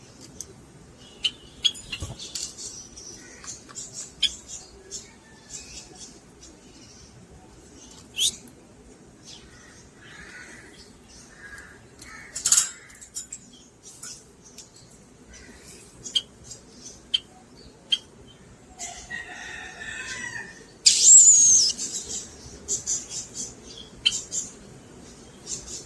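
Lovebirds chirping in short, sharp, high-pitched bursts, with a louder shrill call that wavers and falls about three-quarters of the way through.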